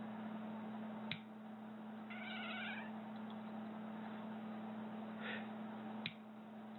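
A cat meows in one long, wavering cry and then gives a shorter call. Two sharp clicks of nail clippers snipping come about five seconds apart, one before the meow and one after.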